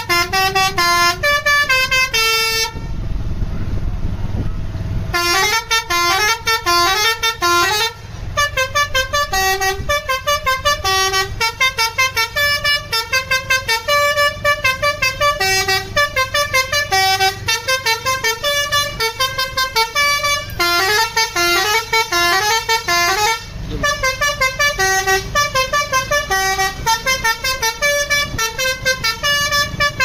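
Basuri multi-tone 'telolet' horn on a tour bus playing a fast tune of short, quick notes. A couple of seconds in, the horn stops for about two seconds and only a low rumble is left; it also breaks off briefly about eight and twenty-three seconds in.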